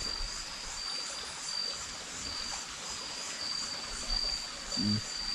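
Night insect chorus: a steady high trill that swells and fades about twice a second, with a second, higher pulsing call above it, over a faint even hiss.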